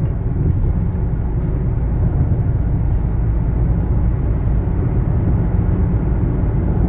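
Steady low rumble of tyre and wind noise inside a Toyota Corolla's cabin, cruising at about 130 km/h on adaptive cruise control.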